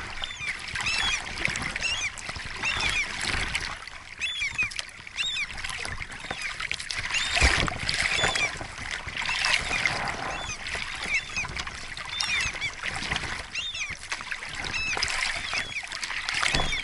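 Plastic oars rowing a small boat across open water: splashing and dripping in strokes every couple of seconds, with many short, high, chirping glides from the water and the oars.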